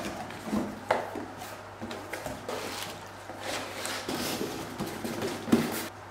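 Cardboard box being unpacked by hand: flaps rustling and scraping and plastic wrapping crinkling as a part is lifted out, with a sharp knock about a second in and a louder one near the end.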